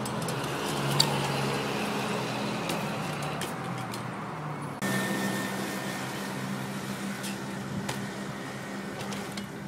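Steady low mechanical hum with a few light clicks, changing abruptly about five seconds in.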